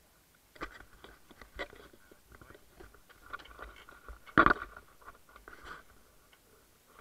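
Scattered knocks and clatter of scuba gear and footsteps on a boat's dive platform, with one loud knock about four and a half seconds in.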